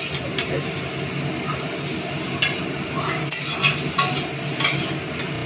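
Spatula scraping and knocking against a metal kadai as stir-fried diced vegetables are scooped out, several sharp clinks over a steady hiss.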